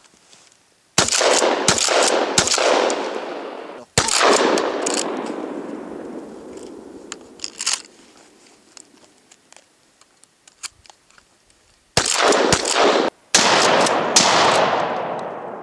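Pump-action 12-gauge shotgun (Fabarm Martial, 12.5" barrel) fired in fast strings: three shots about two-thirds of a second apart, a fourth a second and a half later, and another quick string near the end. Each shot echoes away for a couple of seconds. In the quiet stretch between the strings there are a few faint clicks.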